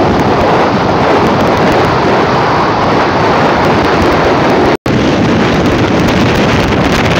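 Wind rushing over the microphone of a moving motorcycle, with the bike's engine and road noise running underneath as a loud, steady rush. The sound cuts out completely for an instant about two-thirds of the way through.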